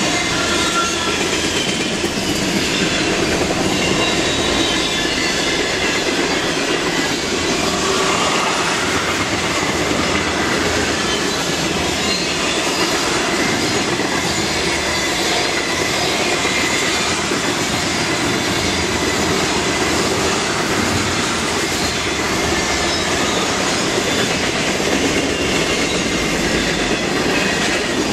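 Freight cars of a manifest train rolling past close by: a steady rumble and clatter of steel wheels on the rails, with faint high squeal tones from the wheels.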